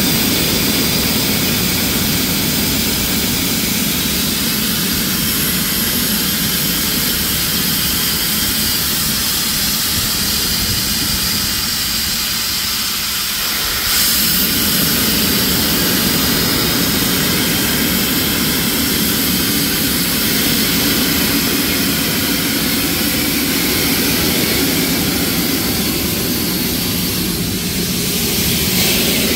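Steam locomotive venting steam: a loud, steady hiss that runs on without a break, getting a little louder about halfway through.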